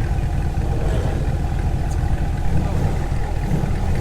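A car engine idling: a steady low rumble.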